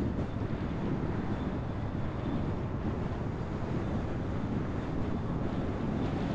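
Steady road and wind noise from a car driving at a constant speed, with wind rumbling on the microphone.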